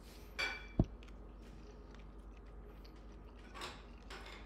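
A person chewing a mouthful of food, with a single dull knock just under a second in.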